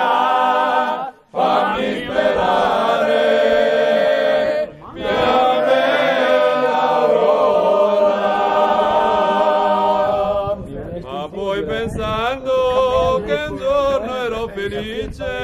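A group of men singing a folk song together in chorus, with an accordion. The singing is held in long phrases with short breaks between them, and turns looser and more broken about ten seconds in.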